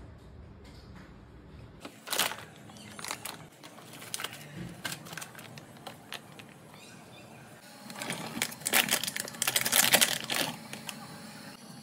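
Plastic food packaging crinkling and clicking as it is handled. A louder run of crinkling and knocking comes as rice cakes are tipped from a plastic bag into a stainless steel pot.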